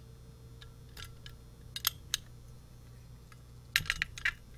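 Small metal clicks from a hex wrench working the stiff projection adjustment screw of a Sugatsune HES3D concealed hinge, the key ticking against the metal hinge body. A few scattered clicks come first, then a quick run of them near the end.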